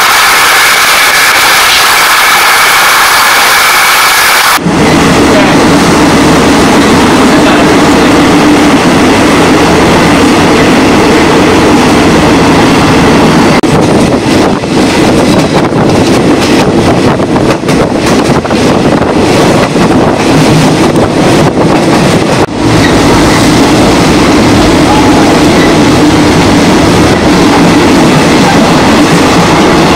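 A passenger train running on the rails, heard from inside the carriage as a loud, steady rumble. It starts as a bright hiss and cuts abruptly a few seconds in to the lower rumble, which changes character again about three quarters of the way through.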